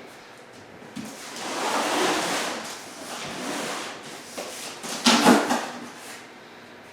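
Cardboard shipping box being shifted and handled: a long rustling scrape around two seconds in, and a louder thud about five seconds in.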